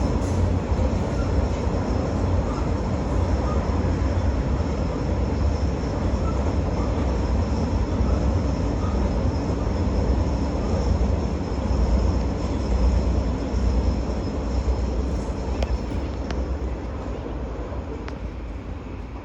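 Grain freight train rolling past: a steady low rumble of wagon wheels on the rails with a faint high ringing tone, a few sharp clicks late on, then the sound fading away near the end as the train goes by.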